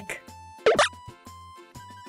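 Light children's background music with a plodding bass line, broken about two-thirds of a second in by a short, loud sound effect.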